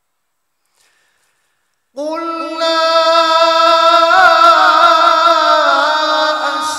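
A man reciting the Quran in melodic tajweed style. After silence he comes in about two seconds in on one long held note, which wavers in ornamented turns midway before settling again.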